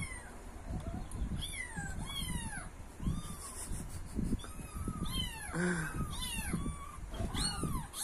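Recorded kitten mews played back from a YouTube clip: many short, high-pitched mews one after another, with one lower call about midway.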